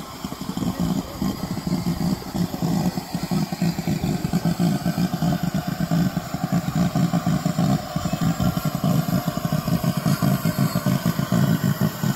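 GWR 2884-class 2-8-0 steam locomotive No. 3802 running slowly into the platform: a steady low sound with fast, uneven pulsing that grows stronger as it comes closer.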